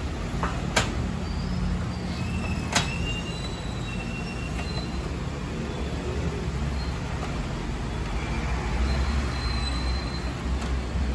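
Steady low background rumble, with two sharp plastic clicks in the first three seconds as the opened inkjet printer's carriage parts and ink tubes are handled.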